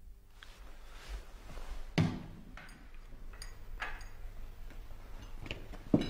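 A sharp knock about two seconds in as a cordless telephone handset is set down on a glass-topped table, followed by a few lighter knocks and taps, with a sharp one near the end.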